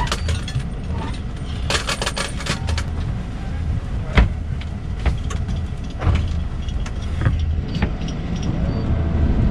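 Sailing yacht's inboard diesel engine running at low idle, a steady low hum, with scattered clicks and rattles of gear on deck and one sharp knock about four seconds in.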